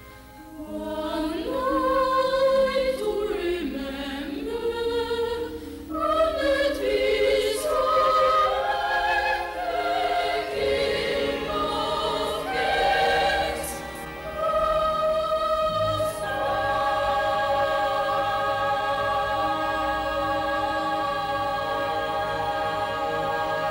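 Music: a choir singing, its melody lines moving for the first two-thirds and then settling into long held chords for the rest.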